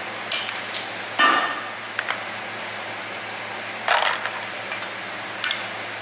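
Sharp metallic clacks and knocks, about five of them a second or two apart, as a hand-held valve keeper removal tool is driven down onto the valve spring retainers of a BMW 520d cylinder head to free the valve keepers. The loudest knock comes about a second in.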